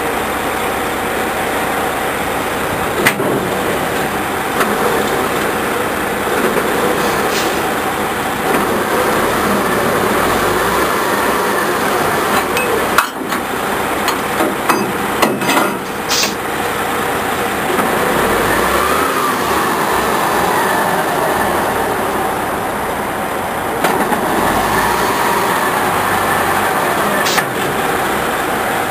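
A big diesel truck engine idling steadily close by, with sharp metal clanks now and then, a cluster of them about halfway through, as the winch cable and hook are handled for a tow.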